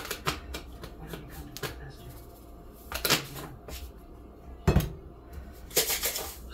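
Seasoning bottles handled on a kitchen countertop: scattered clicks and taps from caps and bottles. The loudest is a heavier knock a little past halfway as a bottle is set down on the counter, and a short shake of seasoning follows near the end.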